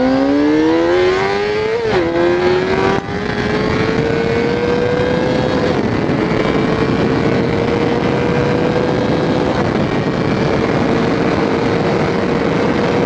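Honda CBR600RR inline-four engine accelerating hard, its pitch rising steeply. It drops sharply at an upshift about two seconds in and climbs again to a second shift around six seconds, then holds a near-steady pitch at cruising speed. Wind rushes over the microphone throughout.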